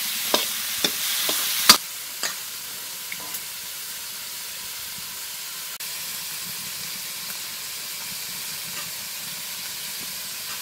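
Cauliflower frying in oil in a metal wok, stirred with a steel ladle that knocks against the pan several times in the first two seconds. After that a quieter, even sizzling hiss carries on.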